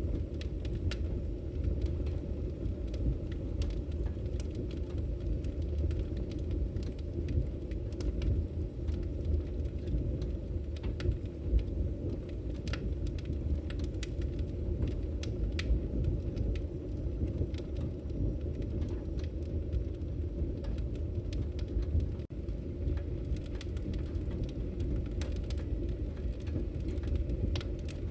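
Wood fire crackling in a fireplace: a steady low rumble of burning with scattered sharp pops and snaps throughout.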